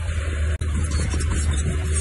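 Diesel engine of heavy earthmoving machinery running steadily under a constant low hum, with a very brief dropout about half a second in.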